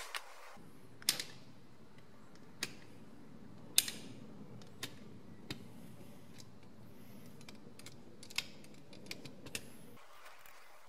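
Sparse sharp metallic clicks and taps as the Moulinette mincer's steel folding legs are handled and clicked into position on the workbench, the sharpest about four seconds in, over a faint steady low hum.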